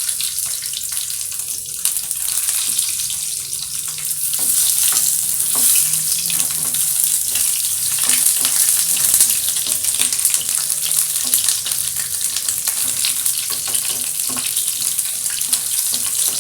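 Boiled chicken gizzards frying in hot cooking oil: a steady sizzle full of fine crackles, which grows louder about four seconds in.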